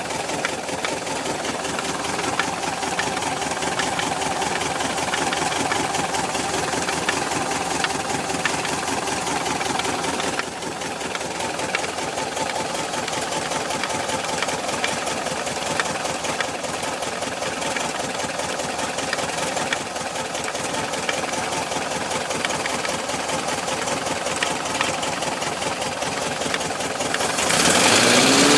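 1973 VW Bus's air-cooled Type 4 flat-four engine idling with a steady, rapid knock that seems to come from around the distributor; the owner cannot trace its cause, and it is there both cold and hot. Near the end the sound briefly gets louder, with a rising tone.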